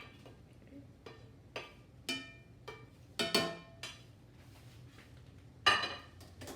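A utensil knocking against a cooking pot as cooked beef chunks are put in: a handful of separate ringing clinks, the loudest near the end.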